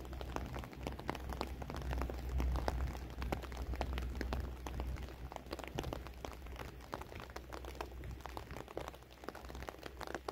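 Raindrops pattering close by as many irregular sharp ticks, over a steady low rumble.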